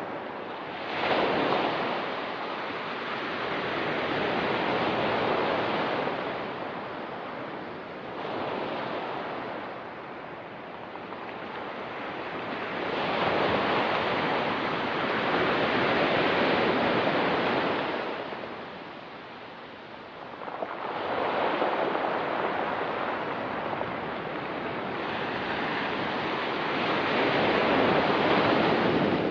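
Ocean surf washing onto a rocky beach: waves swell and fall back every few seconds, with the longest, loudest surges about halfway through and near the end.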